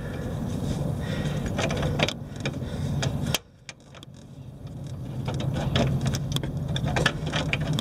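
Light clicks and scrapes of fingers working a bolt on a Yamaha Majesty YP400 front fork, trying to start its thread by hand, over a steady low hum. The sound cuts out for about half a second about three and a half seconds in, then comes back.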